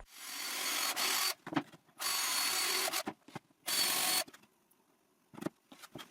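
Cordless drill driver running in three short bursts, about a second each, the first spinning up gradually, driving screws into wood; a couple of light clicks follow near the end.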